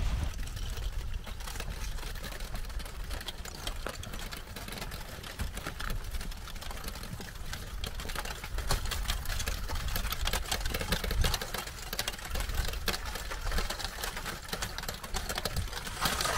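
Front of an advancing lava flow crackling and whispering as its glowing crust cracks and shifts: a dense, irregular patter of small cracks and ticks over a low rumble. The crackling grows thicker and louder about halfway through.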